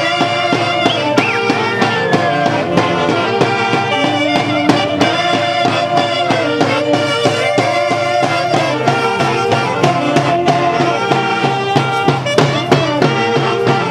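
A Peruvian orquesta típica from Huancayo plays santiago music, with a melody carried in held wind notes over steady, frequent drum strikes.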